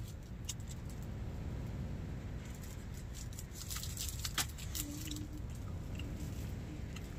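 Crinkly plastic wrapper of a triangle kimbap being handled and pulled open: a run of small crackles and clicks, busiest in the middle with one sharper click, over a steady low rumble.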